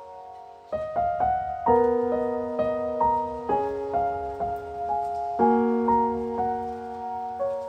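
Gentle solo piano background music: soft chords struck about once a second, each left to ring.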